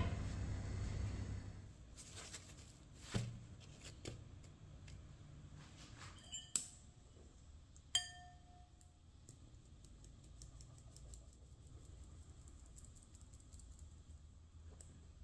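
Kitchenware clinking: a few sharp knocks, two of them with a short ringing tone, as flour is poured into a mesh sieve over a ceramic mixing bowl. Then faint, scattered ticking from the flour being sifted.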